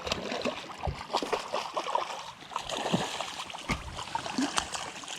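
River water splashing and rushing, with scattered knocks and clicks throughout.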